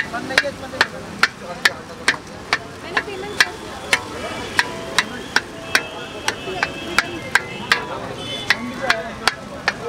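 Metal spatula striking and scraping a kadhai as chowmein noodles are stir-fried, a sharp clank about two and a half times a second in a steady rhythm, over a low frying sizzle.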